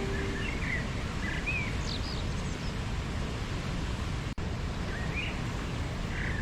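Steady rushing of a waterfall with small birds chirping in short calls, several in the first few seconds and a couple more near the end. The sound cuts out for an instant a little past the middle.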